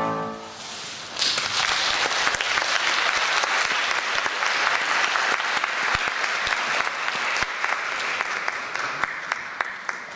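The last violin-and-piano chord dies away, and about a second in an audience breaks into applause that carries on, thinning into more separate claps near the end.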